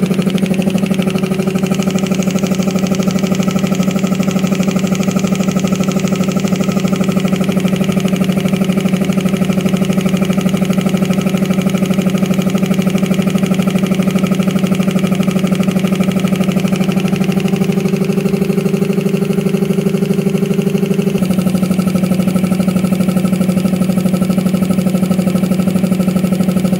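Belt-driven reciprocating air compressor running, its electric motor driving the piston pump with a fast, even pulse as it fills the tank. Pressure is still building toward the pressure switch's cut-out. There is a slight change in tone about three-quarters of the way through.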